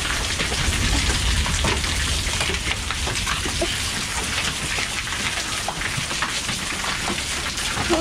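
Heavy rain mixed with hail pouring down onto a concrete driveway: a steady hiss dotted with many sharp ticks of drops and hailstones striking.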